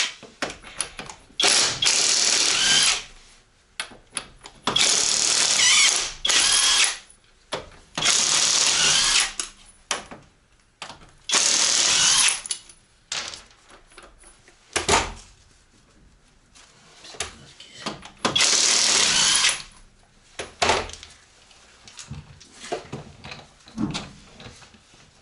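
Cordless power tool spinning out the six bolts of a drive shaft in about six short runs, each a second or so long, with metal clinks between them as the bolts come free.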